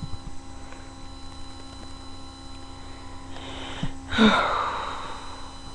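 Steady electrical hum on a webcam microphone, broken about four seconds in by a loud breath noise close to the microphone that trails off over about a second.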